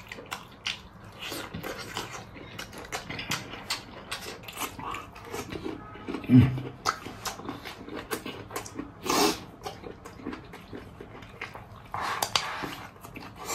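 Close-up eating sounds: chewing and lip-smacking on stir-fried rooster combs and rice, with many small clicks of chopsticks on the bowl. A short low sound falling in pitch comes about six seconds in, and rice is shoveled into the mouth near the end.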